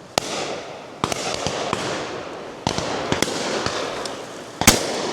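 Shotguns firing at driven pheasants and partridges: about eight shots from near and far guns, irregularly spaced, each trailing off in an echo. The loudest shot comes near the end.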